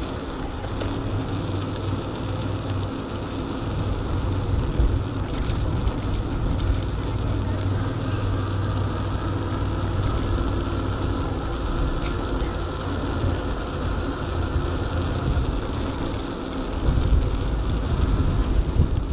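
Wind buffeting a handlebar-mounted GoPro's microphone while riding an electric bike along a paved promenade, over a steady low hum and rumble from the bike. The buffeting turns gustier and louder near the end.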